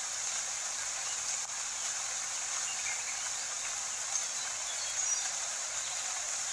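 Steady rainfall sound, an even hiss with a couple of faint short chirps about four and five seconds in.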